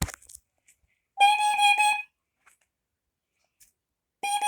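First Alert carbon monoxide alarm sounding during a push-button test: a click, then a high beeping tone just under a second long, which comes again about three seconds later.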